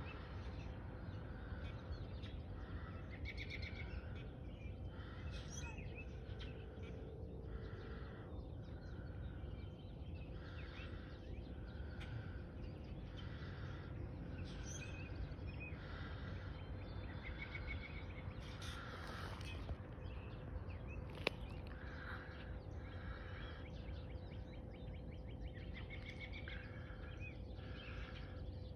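Small birds calling over and over, short notes about one a second, over faint outdoor background noise with a low steady hum. A single sharp click about 21 seconds in.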